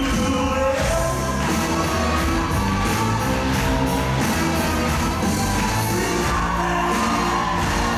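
Loud music with singing and a beat.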